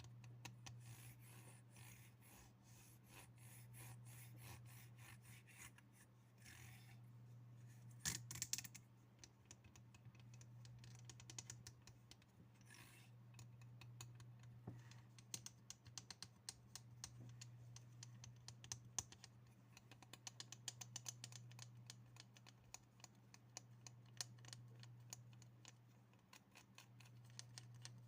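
Light, rapid tapping on objects: a dense stream of small clicks, with a few louder taps about eight seconds in, over a steady low hum.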